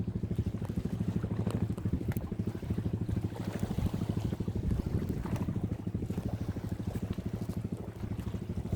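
A small engine running steadily, with a fast, even throb.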